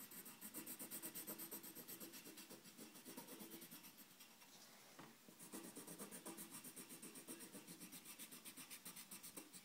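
Pencil shading on paper, faint and quick: rhythmic back-and-forth scribbling strokes that fill in a drawing's stripes, easing off briefly about halfway through before going on.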